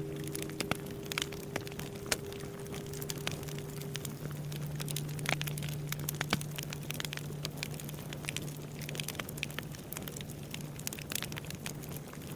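Bonfire crackling and popping, with the low hum of a struck Japanese temple bell lingering beneath it; the bell's higher tones die away about four seconds in, leaving only its deep hum.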